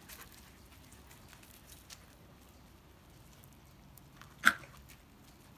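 Husky puppies at play on gravel: faint pattering and scuffling, and about four and a half seconds in a single short, sharp yip.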